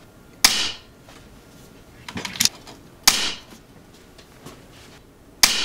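Regulated .22 pre-charged pneumatic air rifle (ATI Nova Liberty) firing three shots about two and a half seconds apart, each a sharp crack with a short hissing tail. Between the first and second shot come the quick metallic clicks of the action being cycled to load the next pellet.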